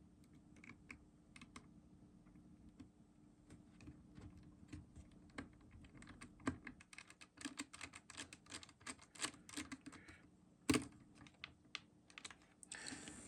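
Faint, irregular small clicks and ticks of a small screwdriver driving a tiny screw back into a personal cassette player's chassis and handling its small parts, with one sharper knock near the end.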